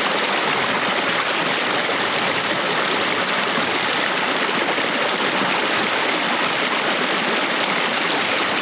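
Creek water rushing in a steady, unbroken wash.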